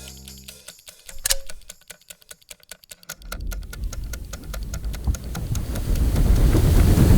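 Clock-like ticking, several quick ticks a second, with a low rumble swelling steadily louder from about three seconds in.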